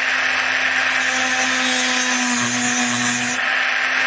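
Small rotary tool with a thin cutting disc running steadily while cutting into the brass inlay of a Boulle cabinet top. The motor gives a steady whine, and a grinding hiss from the disc biting the metal comes in about a second in and drops away briefly near the end.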